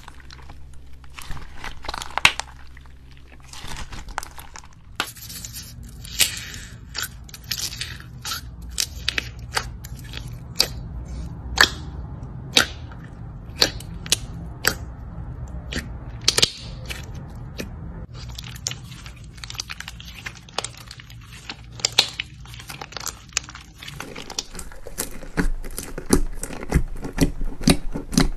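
Slime squeezed, stretched and poked by fingers, making a dense run of sharp sticky clicks, pops and crackles over a low steady hum.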